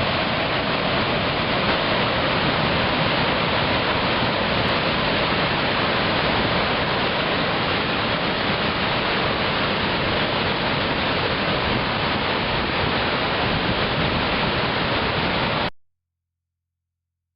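Charpa waterfall: a loud, steady rush of falling water that cuts off suddenly near the end.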